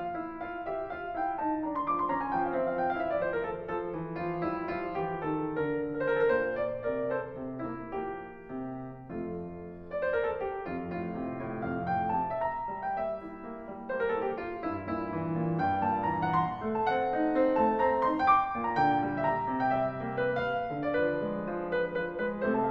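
Background piano music, a run of notes flowing one into another.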